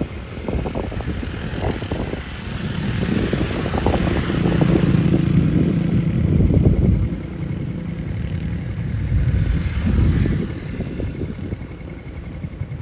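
A motor vehicle's engine running with a steady low hum that grows louder in the middle and then fades, over a rough low rumble of wind on the microphone.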